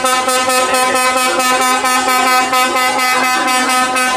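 Rally race truck's air horn blown in one long, steady, loud blast.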